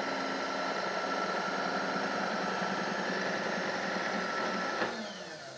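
A steady mechanical hum with hiss and a few held tones, easing off near the end.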